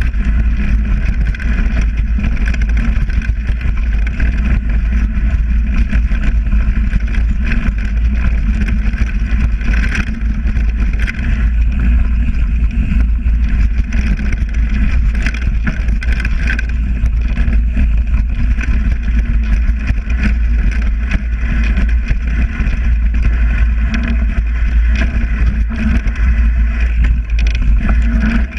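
Wind buffeting an action camera's microphone on a fast mountain-bike descent: a loud, steady rumble, with tyre noise on the leaf-covered dirt trail and frequent short clicks and rattles from the bike.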